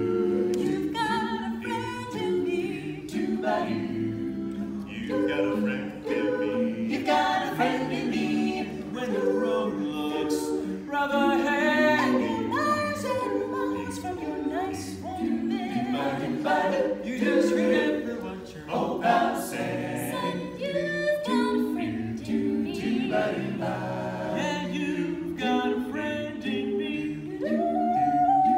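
Mixed men's and women's a cappella vocal ensemble singing a Disney song in close harmony, with no instruments.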